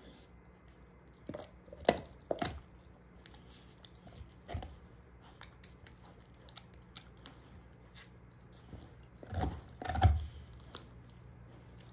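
A German shorthaired pointer gnawing a beef bone: scattered crunches and chewing, the loudest few crunches coming near the end.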